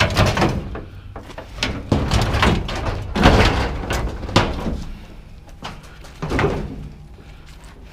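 Scrap being loaded and shifted on a truck bed: a string of irregular knocks, bangs and scrapes as the pieces are pushed into place, the loudest a little past the middle.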